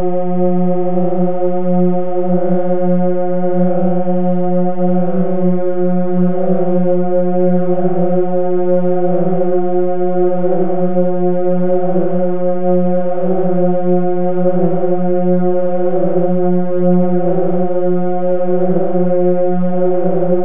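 Sustained drone from the DIN Is Noise software synthesizer: a cluster of 16 drones tuned microtonally between F and G-flat, holding one steady pitch near 180 Hz. From about six seconds in, its upper overtones swell and fade in a slow regular pulse.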